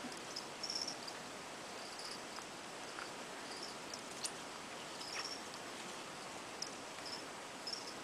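Short, high chirps of a cricket at uneven intervals over a steady hiss, with a few soft clicks.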